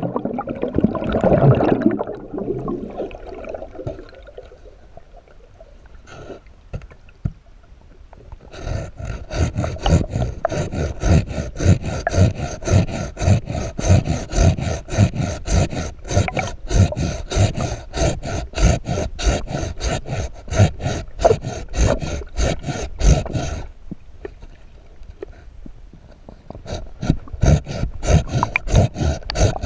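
Hand saw cutting through a submerged tree branch underwater, heard through the camera's waterproof housing: a steady back-and-forth rhythm of rasping strokes, about two a second, that starts some eight seconds in, stops for a few seconds and picks up again near the end. A loud rushing noise fills the first two seconds.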